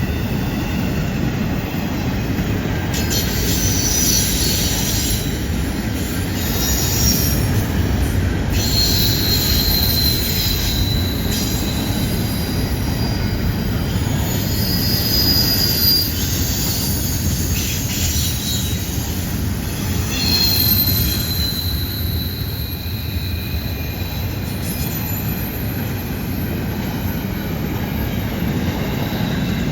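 Freight train rolling past on a curve: a steady heavy rumble of cars on the rails, with steel wheels squealing against the rail in high-pitched squeals that come and go again and again.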